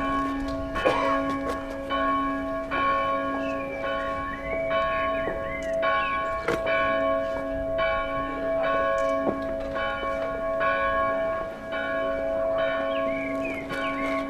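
Church bell tolling, struck about once a second, each stroke ringing on into the next so the hum never dies away.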